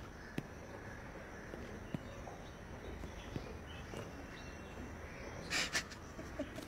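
Quiet room tone with a few faint taps, and a short breathy sob from a crying woman about five and a half seconds in.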